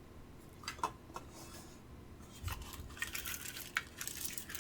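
Handling sounds of a chrome lighter being unpacked from its tin gift box: a few light clicks, then rustling with small knocks and clicks in the second half.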